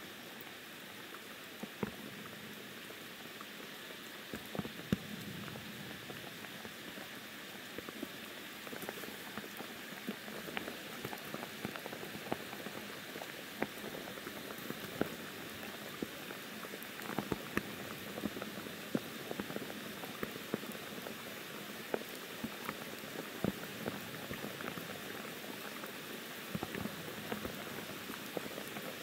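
Soft monsoon rain falling on forest foliage: a steady hiss with many separate close drops ticking and dripping, coming a little more often later on.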